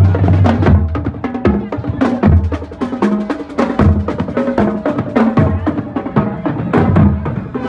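Marching band playing: a bass drum beating about once a second under quicker snare-drum strokes, with brass, including a trombone, holding notes over the drums.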